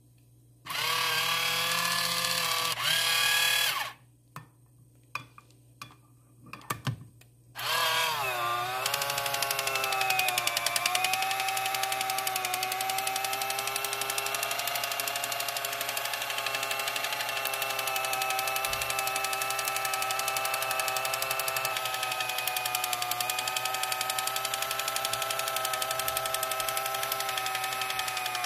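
Kitchen Mama electric can opener running on a can of black beans, its motor whining as it cuts around the lid. It runs for about three seconds and stops, a few clicks follow, then it starts again about eight seconds in and runs steadily to the end, its pitch dipping briefly a couple of times.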